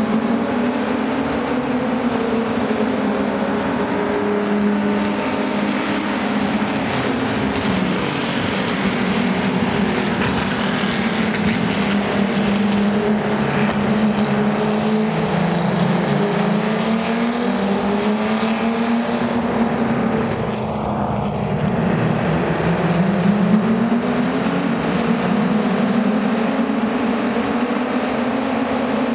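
Several open-wheel formula race cars lapping at speed, their engines running at high revs with overlapping notes that rise and fall as the cars pass, brake and accelerate. About twenty seconds in, the engine note drops sharply and then climbs again as a car slows for a corner and pulls away.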